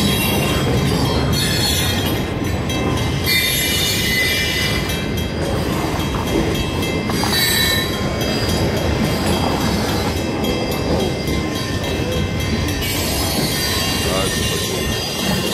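Freight train cars rolling past, the steel wheels squealing with several high steady tones over a continuous rumble.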